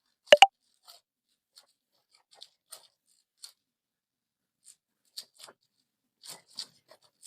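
Clay tubs being handled and opened: a sharp double pop with a short ringing tone just after the start, then scattered soft crackles and taps.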